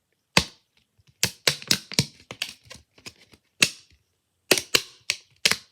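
Homemade fidget toy being clicked: about a dozen sharp, loud clacks in an uneven run.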